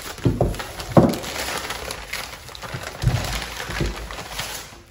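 Brown kraft packing paper being pulled out of a shipping box and crumpled, rustling and crackling, with a few sharper, louder crackles, the loudest about a second in.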